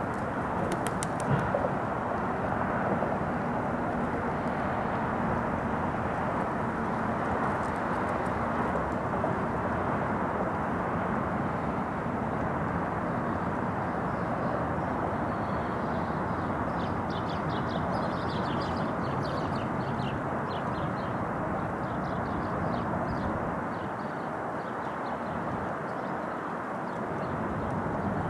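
Distant jet noise of a four-engined Airbus A380 climbing away after takeoff: a steady rushing rumble with no distinct tones, easing slightly near the end. A few faint high chirps come in about two-thirds of the way through.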